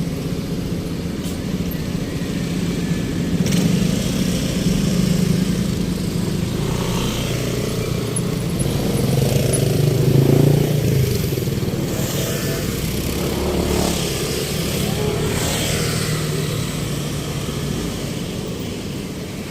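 Engine of a passing motor vessel or vehicle, a steady hum that swells to its loudest about halfway through and then fades slowly.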